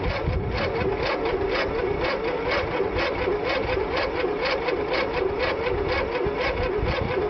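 Simplicity lawn tractor's two-cylinder engine cranking on its electric starter without firing. The starter whines under a steady chugging beat of compression strokes, several a second, and the engine is cranking very, very slowly. The owners put the uneven cranking down to one cylinder having good compression and the other not.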